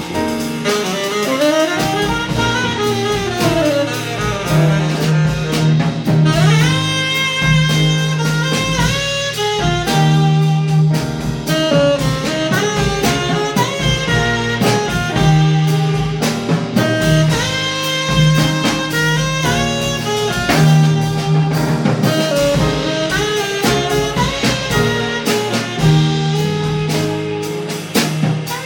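Live jazz quartet playing: saxophone over piano, double bass and drum kit, the bass holding a repeating low note.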